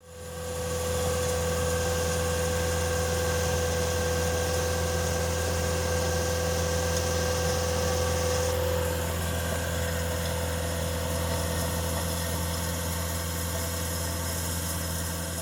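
An engine idling steadily with a low hum. It fades in at the start and fades out near the end.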